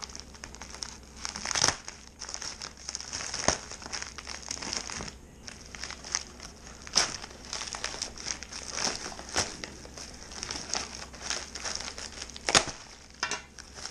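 Padded plastic mailer crinkling and crackling as it is cut with a knife and pulled open by hand, with a few louder snaps along the way.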